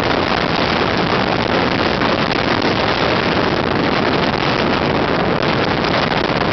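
Steady wind buffeting the microphone, a loud unbroken rush with no let-up.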